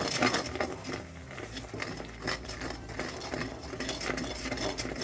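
A spoon scraping and clinking against a kadhai while stirring a thick, cooking mixture of jaggery and ginger paste, in a run of short irregular scrapes and taps.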